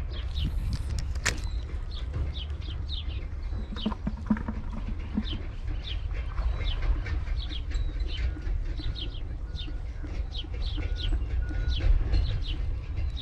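Many small birds chirping in short, quick down-slurred notes, several a second, over a steady low rumble. A brief noisy rush comes about half a second in.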